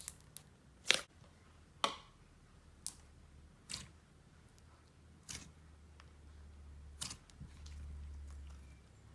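Jelly slime being pressed and poked by hand, giving short, sharp wet clicks and pops about once a second. A low rumble comes in near the end.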